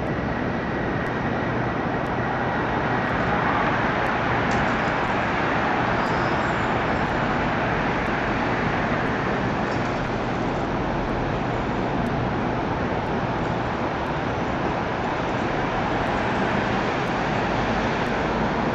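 Steady city traffic noise: a continuous, even hiss and rumble with no distinct events, and a faint high whine during the first few seconds.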